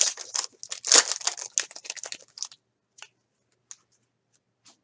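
A trading card pack's wrapper being torn open and crinkled for about two and a half seconds, then a few light ticks as the cards are handled.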